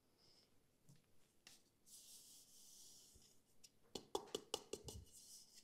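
Granulated sugar poured from a small bowl into a glass mixing bowl: a faint high hiss lasting about a second and a half. Near the end comes a quick series of light taps and clicks.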